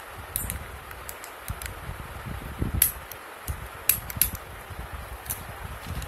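Fidget cube being clicked: irregular sharp plastic clicks from its buttons, a few louder ones in the middle, over the low rub of fingers handling it.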